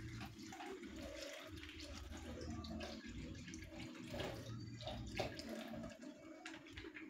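Milk being poured from a packet, a faint steady pour of liquid.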